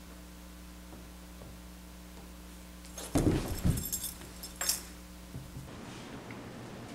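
Steady electrical hum, then about three seconds in a brief clatter of thumps, rustling and metallic jingling, typical of people getting down onto a hard floor. The hum cuts off suddenly near the end.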